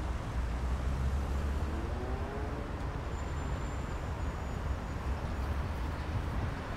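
Steady city road-traffic noise, with a low rumble of wind on the microphone.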